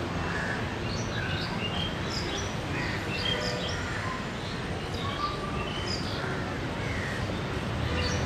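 Crows cawing and other birds chirping in short scattered calls, over a steady low rumble of city traffic.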